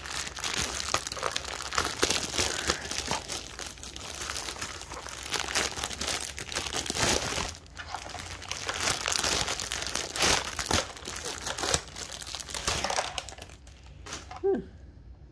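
Plastic packaging bag crinkling and rustling as it is handled and pulled off a ride-on toy car's seat part, dying away near the end.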